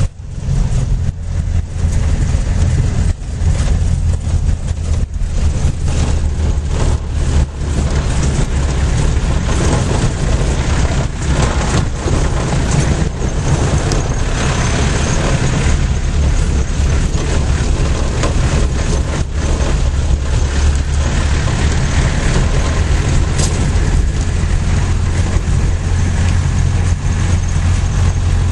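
Heavy vehicle's engine running steadily under way, heard from inside the cab, with frequent jolts and rattles from driving over a rough gravel road.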